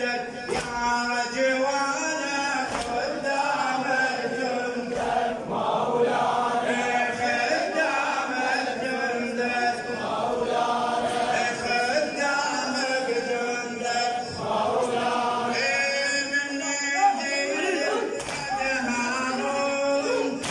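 Men's voices chanting a Shia Muharram latmiya lament together, with sharp slaps of hands beating on chests in a steady rhythm.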